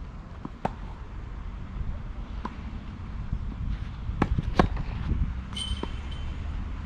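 Tennis ball bounced a couple of times on the court, then hit hard with a racket on a serve, followed closely by a second sharp ball impact and a fainter hit about a second later as the point gets under way. A low steady rumble runs underneath.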